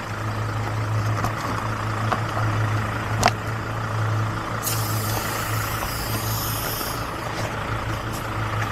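A vehicle engine idling with a steady low hum, with a sharp click about three seconds in and a high hiss that lasts about two seconds from about five seconds in.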